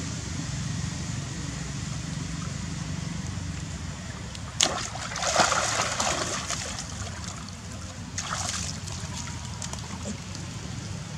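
Water splashing as monkeys thrash and wrestle in a pond, with a sharp knock and then the loudest splashing about halfway through, and another burst of splashing a few seconds later, over a steady low rumble.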